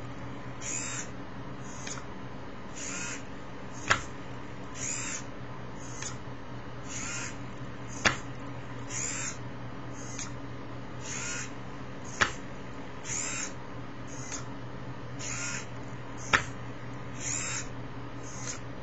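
Homemade crawling robot moving slowly: its small motors whir in short bursts about once a second, with a sharp click every four seconds as the movement cycle repeats, over a steady low hum.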